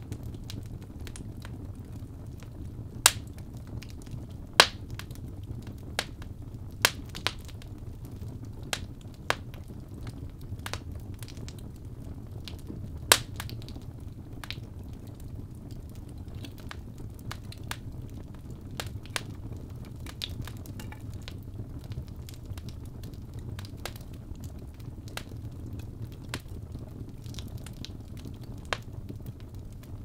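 Birch logs burning in an open fireplace: a steady low rush of flame with scattered sharp crackles and pops, several of them loud in the first half.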